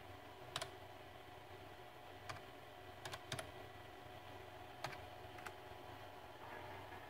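Separate key presses on a computer keyboard, about six sharp clicks spaced unevenly, two in quick succession about three seconds in, as a G-code command is typed into the CNC control. A faint steady hum runs underneath.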